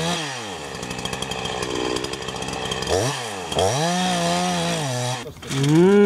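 Two-stroke chainsaw cutting firewood, its engine speed dropping and rising several times as it revs up and comes back down.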